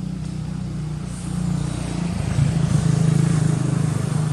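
A motor vehicle's engine running as it approaches and passes close by on the road. Its low note grows louder from about a second in and is loudest near the end.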